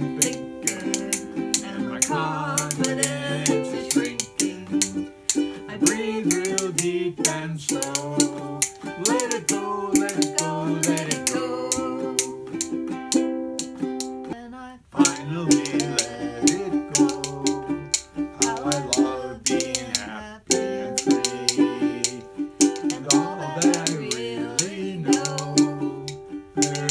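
A man and a woman singing a gentle song together to a strummed ukulele, with rhythm bones clicking along in time. The music drops out briefly about halfway through.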